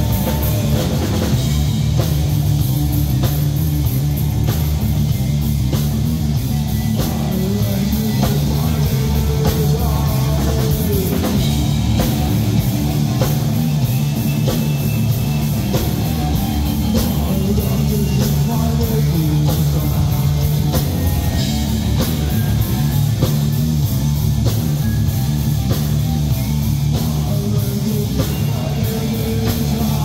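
Heavy metal band playing live: distorted electric guitar, electric bass and a drum kit with constant drum and cymbal hits, with a singer's vocals over them. The sound is loud and steady throughout.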